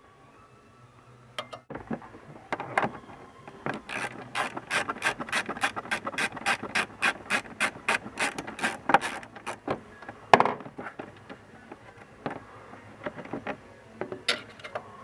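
Hand socket ratchet clicking as it loosens the fasteners of a lower dash cover. A few scattered clicks give way to a steady run of about three or four clicks a second. This is followed by one sharper click and slower, scattered clicks.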